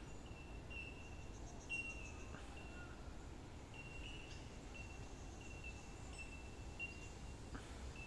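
A few faint clicks of an iPod Classic 4th gen's case being worked open, its plastic clips letting go as the back is pried away from the front shell. Under them runs a faint high-pitched tone in short repeated notes.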